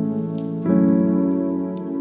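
Background music on a piano-like keyboard: sustained chords, with a new chord struck about two-thirds of a second in.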